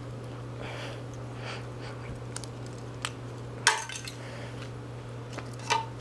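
Small metal parts of a dismantled Revlon hairdryer being handled and strained at by hand: a few light clicks, then two sharp metallic clinks that ring briefly, one about midway and one near the end, over a steady low hum.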